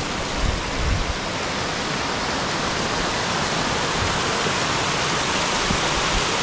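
Small river waterfalls and cascades spilling over rock ledges, a steady rushing of water.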